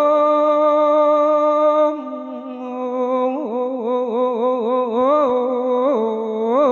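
A monk's voice chanting an Isan thet lae sermon melody, holding one long steady note for about two seconds, then moving into a slightly quieter run of quick, wavering ornamental turns on a drawn-out vowel.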